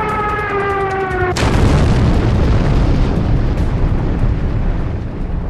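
A held tone sliding slowly down in pitch is cut off about a second and a half in by a sudden loud explosion that carries on as a heavy rumble: a dramatised sound effect of an airliner crashing and exploding.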